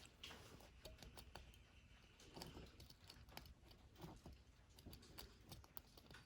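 Faint, scattered clicks and taps of small metal parts being handled: the plunger, spring and locking plate of a motorcycle fuel quick-disconnect fitting being fitted back together.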